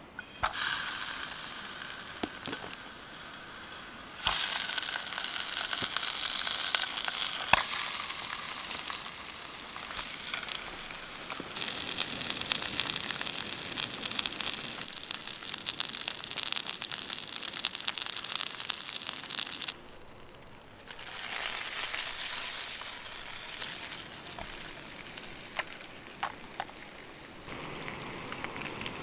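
Sausages sizzling and crackling as they fry in oil in a camping frying pan over a gas canister stove. The sizzle starts suddenly as the first sausage goes into the hot pan and grows louder in steps as more are added, with a brief drop about twenty seconds in.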